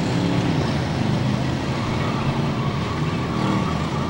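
Several demolition-derby cars' engines running and revving at once: a steady mix of engine notes rising and falling, with no single crash standing out.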